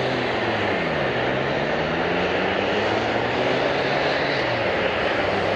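Airliner's engines running loud and steady as the plane passes the airport, a dense rush of noise with low tones that slide down in pitch in the first second.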